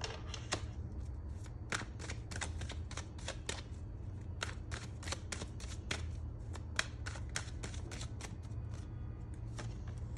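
A tarot deck being shuffled by hand, overhand: an irregular patter of short card slaps and clicks, a few a second.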